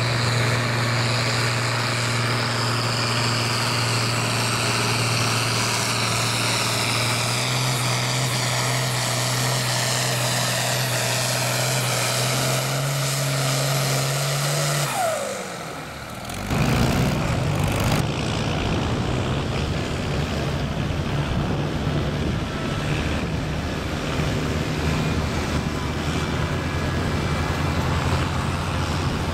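Diesel farm tractor engine running flat out under full load while pulling a weight-transfer sled: a steady low drone that steps up in pitch twice, with a high whine that slowly falls. About halfway through, the sound cuts to another pulling tractor's diesel engine running rough and hard.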